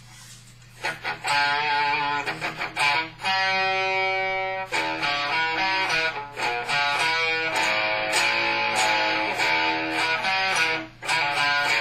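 Electric guitar played through an amplifier, over a steady low hum. After about a second of quiet come a few picked notes, then a chord held for about a second and a half, then quick riffing that breaks off briefly near the end before starting again.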